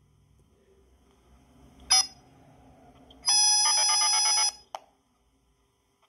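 Yaesu FT5D handheld radio's speaker playing back a recording of DTMF tones: a short beep about two seconds in, then a steady tone lasting about a second and a half, both carrying a high-pitched squeal. The squeal is the squeaking defect that shows up when DTMF is sent while the radio is recording. A brief click follows the long tone.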